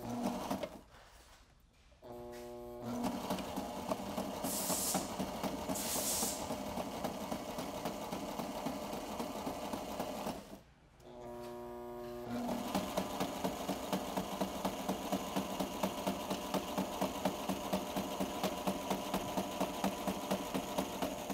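Sailrite Ultrafeed LSZ-1 walking-foot sewing machine running slowly in straight stitch, sewing through bias binding on clear vinyl window material with a steady clatter of needle strokes. It stops briefly about halfway, then runs on.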